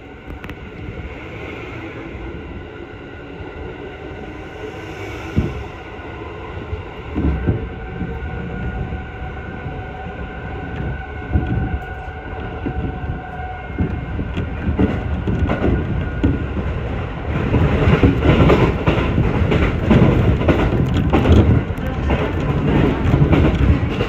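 Train running, heard from on board: knocks of the wheels over rail joints and running noise that grows louder toward the end as the train picks up speed, with a steady whine in the first half.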